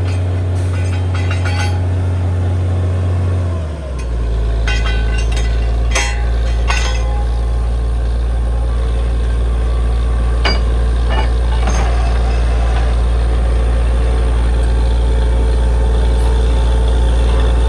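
Heavy diesel engine of a borewell drilling rig running steadily under load. Its low drone drops in pitch about four seconds in, and then holds. Sharp metallic clinks come a few times in the middle.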